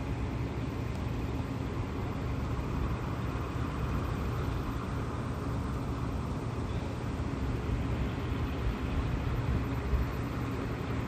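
Steady outdoor rumble of distant city traffic, heaviest in the low end, with no distinct event standing out.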